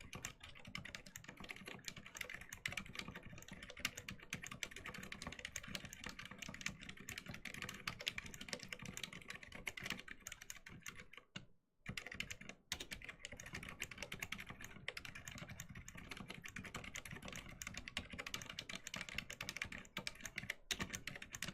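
Close-miked fast, continuous typing on a Varmilo V80 tenkeyless mechanical keyboard with Cherry MX Silent Black linear switches in an aluminum case, making a dense stream of key strokes with a short pause about halfway through. The spacebar's stabilizer bar clicks, a fault the owner means to look at.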